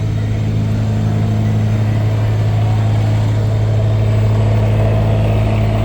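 Cummins diesel engine running steadily with a higher whistling squeal over its low hum; the squeal grows stronger about halfway through. The owner thinks it sounds like a belt, because it changes in frequency.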